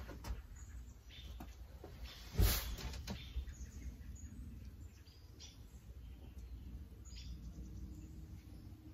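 Saw chain being handled and slid onto a chainsaw bar: scattered light clicks and one louder knock about two and a half seconds in. Birds chirp faintly in the background.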